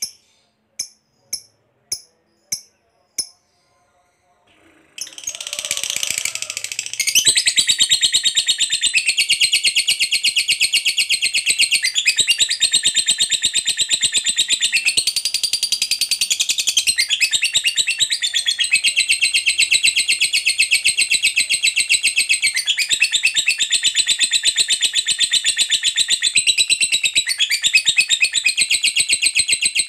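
Lovebird's long chattering trill ('ngekek panjang'): a very fast, high run of notes that starts about five seconds in and keeps going with only a few short breaks and shifts in pitch. Before it come about half a dozen short, evenly spaced high pips.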